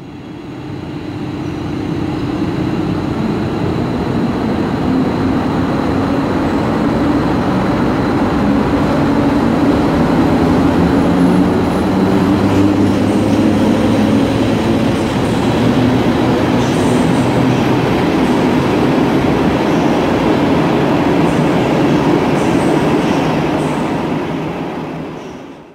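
EP07 electric locomotive pulling a train of passenger coaches out of the station and passing close by: steady running noise of the locomotive and the coach wheels on the rails, with a low hum. Faint high wheel squeals come and go in the second half.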